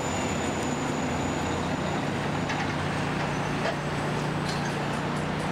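Steady street traffic noise with a continuous low engine hum from a passing or idling large vehicle.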